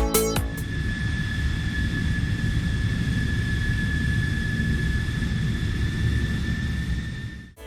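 Steady airplane engine noise: a low rumble with a thin, steady high whine over it, cutting off suddenly near the end.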